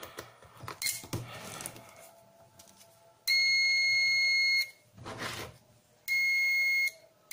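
A DT-9205A digital multimeter's continuity buzzer gives a steady high beep each time the test-lead tips are touched together, showing that the remade leads conduct. There is a first beep of over a second, a shorter second beep, and a third starting at the very end. Before the beeps come a few soft clicks and rustles as the meter is switched on and the leads are handled.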